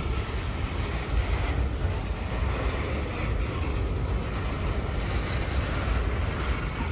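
Union Pacific freight train's cars rolling past on the rails: a steady, unbroken rumble of wheels on track with mechanical clanking.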